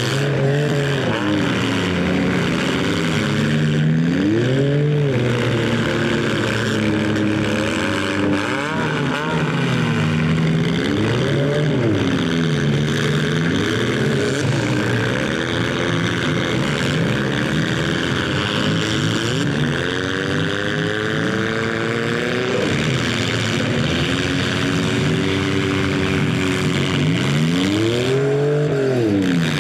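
Several stock compact-car engines revving up and down together, the pitch of each rising and falling as the derby cars accelerate and back off. A big rev climbs and drops near the end.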